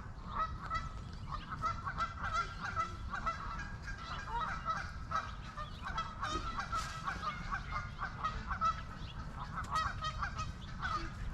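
Geese honking over and over, many short calls in quick succession, over a steady low rumble.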